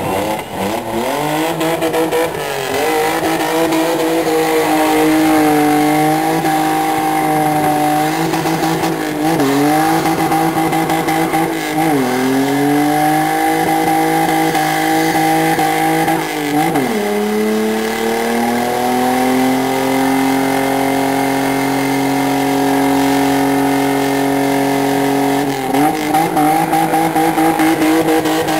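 BMW E30 doing a burnout: the engine is held at high revs while the spinning rear tyres squeal. The revs dip and climb back several times, then hold steady for several seconds before dipping again near the end.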